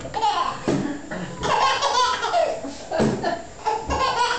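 People laughing in repeated bursts.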